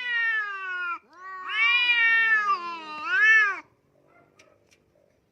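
A cat yowling in long, drawn-out meows. The first call falls in pitch and trails off about a second in. A second, longer call rises and falls twice and stops abruptly after about three and a half seconds.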